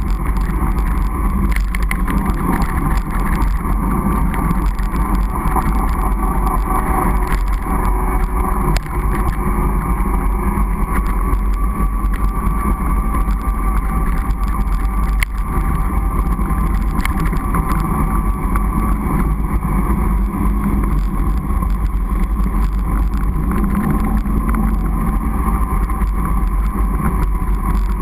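Steady rumbling noise of a fatbike ridden over a snow-packed road, picked up by a camera mounted on the bike: wind on the microphone mixed with the fat tyres rolling over snow.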